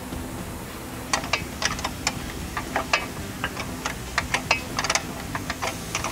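Hand ratchet clicking in short, irregular runs, starting about a second in, as the nerf rail's mounting bolts and 13 mm nuts are tightened.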